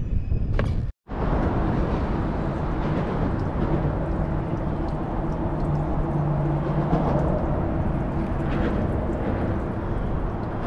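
Wind buffeting the microphone, a steady rush of noise with a faint low hum underneath. The sound drops out briefly about a second in.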